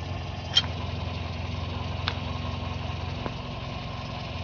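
Toyota Echo engine idling steadily, with a few sharp metal taps as a punch stakes the front axle nut. The loudest tap comes about half a second in, another about two seconds in.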